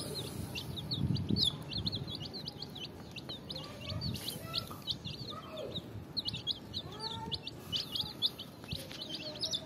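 A flock of baby chicks peeping continuously, many short high chirps a second overlapping, with a few lower calls among them. A low muffled sound comes about a second in and again near four seconds.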